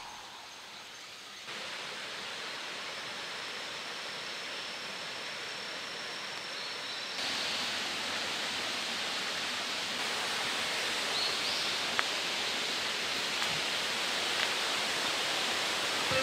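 Steady rushing of a mountain stream. It gets louder in two steps, about a second and a half in and again about seven seconds in.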